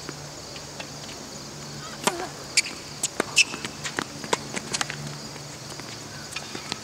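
Tennis rally on a hard court: racket strikes and ball bounces heard as scattered sharp knocks, with a few louder clicks close to the microphone, over a steady high insect drone.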